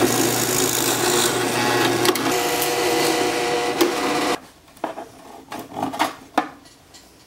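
Drill press motor running with a steady hum, stopping abruptly about four seconds in. A few light knocks and clatters follow.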